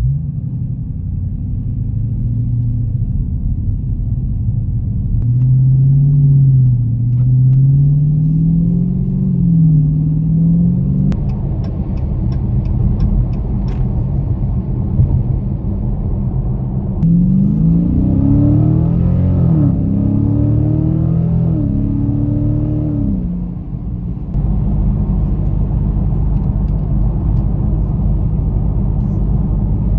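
Engine and road rumble inside the cabin of a 2023 Dodge Challenger Scat Pack with its 6.4-litre HEMI V8. The engine note wavers up and down, a short run of light ticks comes about eleven seconds in, then the pitch climbs and drops back several times as the car accelerates through the gears before settling into a steady drone.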